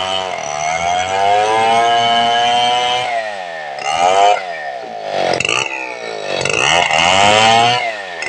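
Homemade two-stroke chainsaw built like a Stihl 070, running steadily under load while ripping lengthwise through a log. About three seconds in, the engine speed starts swinging up and down, rising and falling several times in quick succession.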